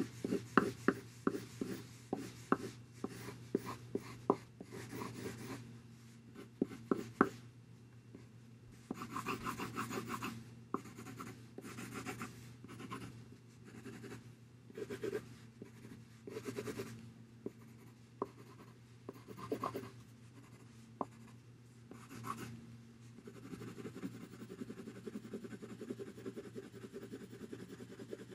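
Coloured pencil drawing on paper. It starts with a run of short, quick strokes that end in sharp ticks, goes on with longer scratchy strokes, and near the end turns to rapid back-and-forth shading.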